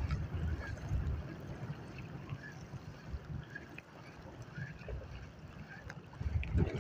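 Gusty wind rumbling on the microphone, stronger near the start and again near the end, over sea water lapping.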